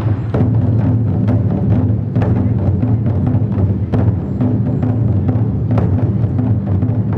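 Traditional Taiwanese drum-and-gong (jingu) ensemble playing: a big drum rolling steadily with sharp metal cymbal or gong crashes struck every second or so over it.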